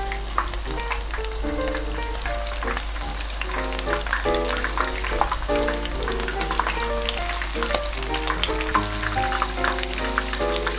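Battered chicken thigh pieces deep-frying in hot oil, a dense, continuous crackling sizzle, over background music.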